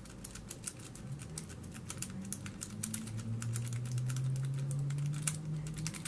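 Rapid, irregular metallic clicking and scraping of a Sparrows worm rake being worked in and out of a Master Lock No. 5 padlock's keyway, the pin tumblers ticking against the pick. A low steady hum comes in about halfway.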